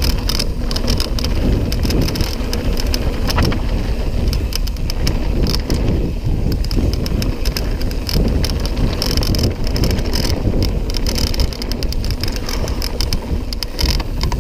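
Mountain bike riding fast down a rough gravel trail, heard from a camera on the rider: wind rumbling on the microphone, tyres crunching over loose stones and a constant clatter of sharp rattling clicks from the bike.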